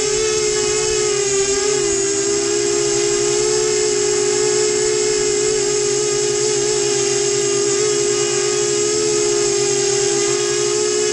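FT250 quadcopter's motors and propellers whining steadily while it hovers, heard close up from its onboard camera; the pitch wavers and dips slightly about two seconds in.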